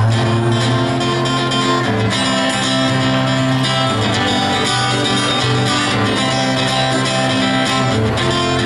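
Live rock band playing an instrumental passage between sung lines: guitars strumming held chords over bass and drums, the chords changing about every two seconds.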